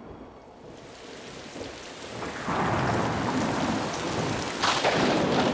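Heavy rain falling in a thunderstorm, swelling louder about two and a half seconds in, with a sharper crash of thunder near the end.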